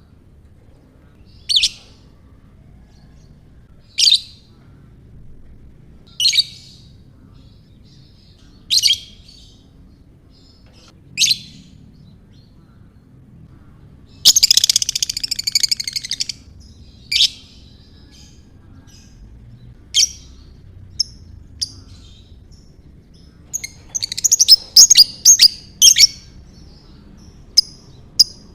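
Lovebird calling: sharp single chirps about every two and a half seconds, a fast chattering trill ('ngekek') lasting about two seconds near the middle, then scattered chirps and a quick run of them near the end.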